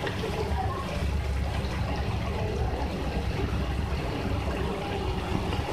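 Chicken and vegetables cooking in a wok on the stove: a steady low rumble with a faint sizzling hiss above it.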